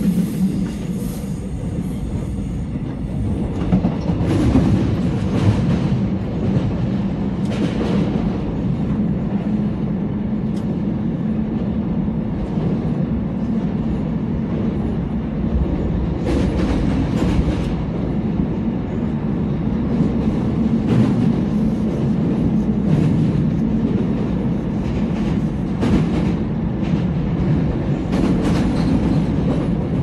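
Seoul subway Line 4 train running at speed, heard from inside the passenger car: a steady low rumble from the wheels and running gear, with the wheels clacking now and then over the track.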